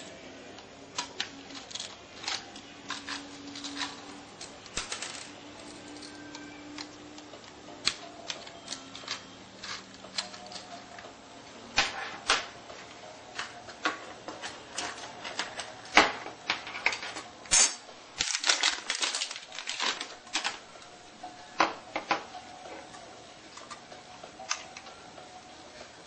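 Irregular sharp clicks and taps of a laptop being handled and worked on, plastic and metal parts knocking, coming thickest toward the middle.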